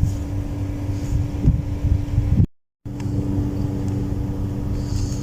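Steady low mechanical hum with a constant pitch and a rumble underneath. It drops out completely for a moment about halfway through.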